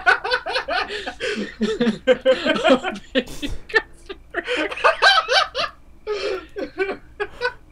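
Two young men laughing hard, in several bursts of rapid giggling and snickering with short pauses between.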